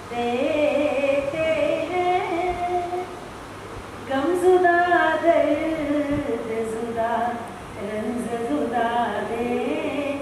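A woman sings a ghazal, unaccompanied, into a handheld microphone. She holds long, wavering notes in phrases and takes short breaths about three seconds in and again near eight seconds.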